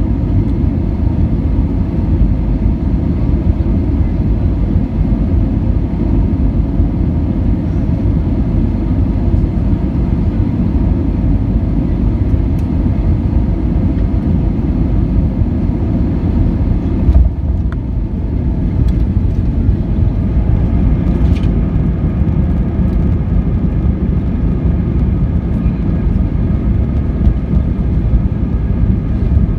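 Airbus A320 cabin noise during landing: a loud, steady rumble of engines and airflow. Just over halfway through there is a sudden thump as the main wheels touch down, after which a steady whining tone joins the rumble as the airliner rolls along the runway.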